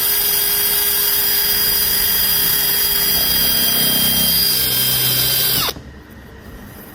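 Power drill running steadily at high speed, boring into the wood around an embedded nail to expose it; the pitch dips as the bit loads in the wood, then the trigger is released about five and a half seconds in and the motor winds down.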